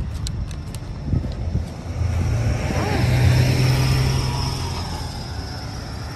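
Coach driving past close by: a low engine drone and tyre noise swell to a peak about three seconds in, then fade as it pulls away.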